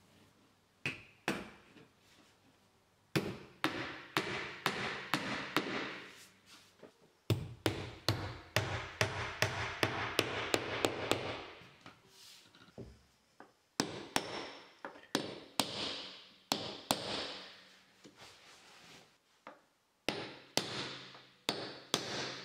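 Wood flooring strips being handled by hand: repeated sharp taps and knocks as boards are set down and pushed into place, with stretches of wood scraping and rubbing as a strip slides over the board beneath.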